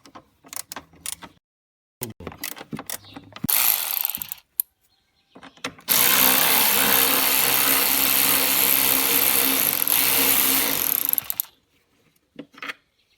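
Handheld cordless power tool run steadily for about five seconds and then stopped, after a few clicks and knocks of tools being handled and a brief burst of the tool.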